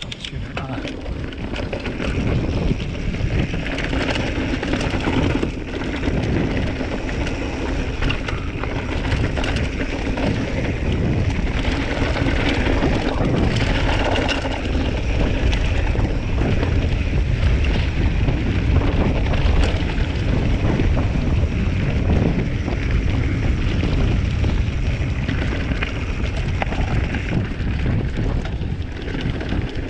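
Wind buffeting the action camera's microphone over the continuous rumble and rattle of a Giant Trance 3 full-suspension mountain bike rolling fast down a dirt trail.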